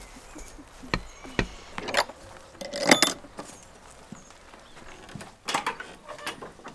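Handling noise from a camera carried against clothing: rustling with a string of sharp knocks and clinks, the loudest about three seconds in and another cluster near the end.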